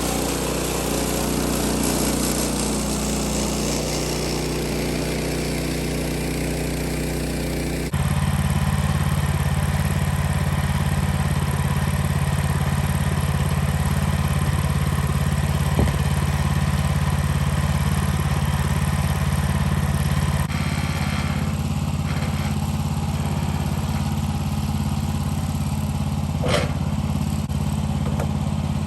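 Sawmill's gasoline engine running steadily under throttle, its note changing abruptly twice, with a couple of brief knocks near the end.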